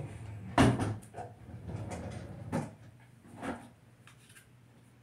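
Toiletries being handled on a bathroom counter while getting out a toothbrush and toothpaste: a sharp knock about half a second in, then softer rustling and two lighter knocks.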